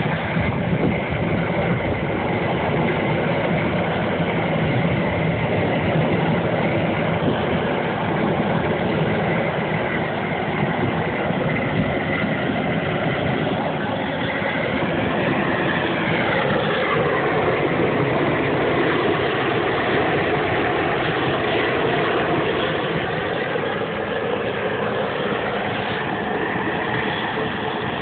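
Propane gas torch burning steadily while singeing a slaughtered pig's skin. About halfway through, a whine falls in pitch over a couple of seconds.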